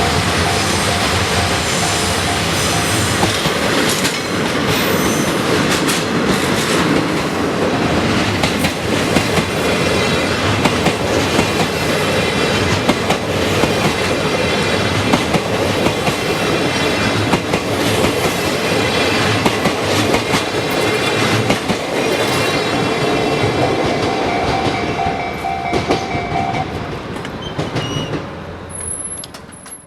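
A train of 14-series passenger coaches hauled by two DD51 diesel locomotives passes over a level crossing, its wheels clattering and squealing, while the crossing's warning bell rings. The noise falls away near the end as the train goes by.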